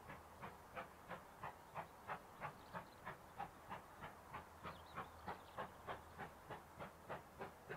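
GWR Large Prairie tank locomotive 4144, a two-cylinder steam engine, working a train: faint, even exhaust beats at about three a second, heard from afar.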